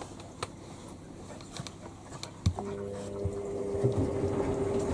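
Washing machine drum motor during the distribute phase before a spin. A knock about two and a half seconds in, then a steady motor whine that builds slowly in level.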